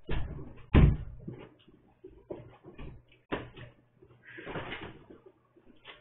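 Irregular knocks and thumps of a person walking in and moving things about on a hard floor, the loudest about a second in.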